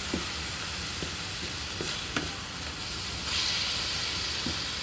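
Chicken frying in oil in a pan, sizzling steadily. A few light clicks of a utensil against the pan come as the chicken is stirred and broken apart.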